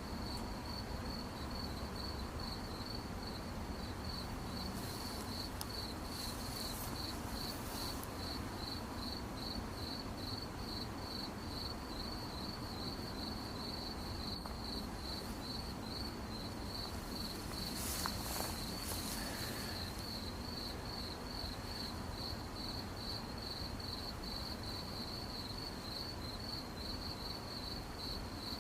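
Cricket chirping steadily, a high pulsed trill repeating about three times a second, over a low background rumble. There are two short bursts of hiss, the louder one about eighteen seconds in.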